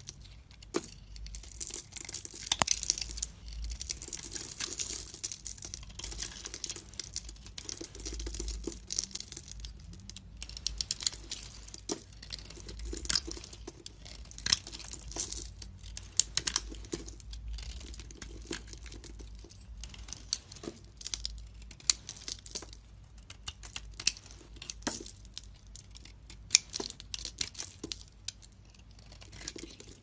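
A blade carving and shaving a dry bar of soap: crisp crackling and scraping with many small sharp clicks as flakes and powder break away. Irregular throughout, with no rhythm.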